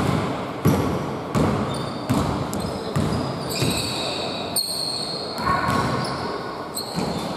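Basketball dribbled on a hardwood gym floor in a reverberant hall, about five even bounces in the first three seconds, followed by sneakers squeaking on the wood.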